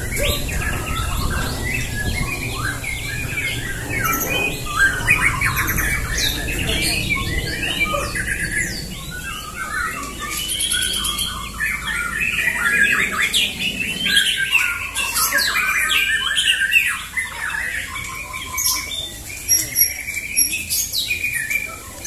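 Several white-rumped shamas singing over one another: a dense, unbroken mix of quick, varied whistles and chattering phrases.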